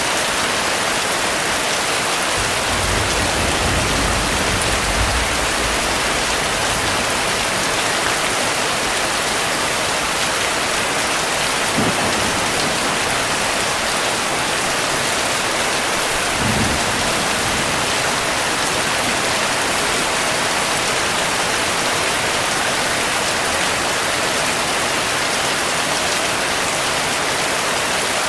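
Heavy rain falling steadily, with a low rumble of thunder a few seconds in and two brief low thumps later on.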